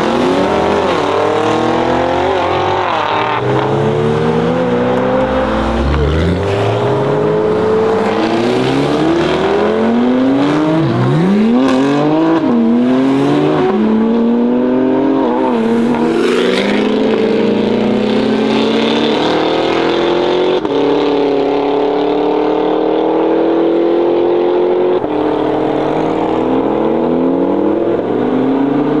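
BMW M4 CSL's twin-turbo inline-six with a loud custom exhaust, accelerating hard: the engine note climbs, drops at each gear change and climbs again, over and over, with a couple of sharp cracks along the way. In the later part the note holds steadier and climbs slowly, stepping at a shift.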